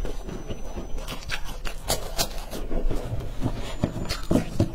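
Close-miked chewing of a crunchy coated stick snack: irregular crisp crackles and clicks. Near the end come scraping and rattling as a handful of the dry sticks is picked up from the tray.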